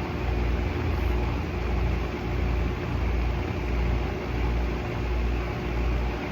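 A workshop power tool's electric motor running steadily, with a steady hum and a low throb that pulses about one and a half times a second.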